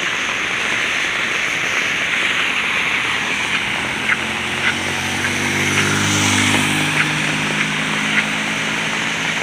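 Steady rain hiss with scattered drop taps. From about three seconds in, a passing vehicle's engine hum comes up and fades away on the wet road.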